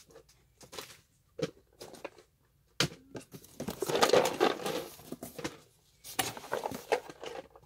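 Cardboard puzzle boxes being handled and moved about in a shipping box: a few light knocks, then a stretch of rustling and scraping, loudest about four seconds in, and another shorter bout near the end.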